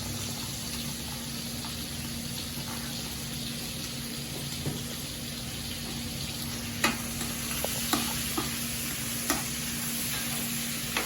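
Diced steak sizzling as it sears in a hot pan, seasoned on top, with a few sharp clicks in the second half.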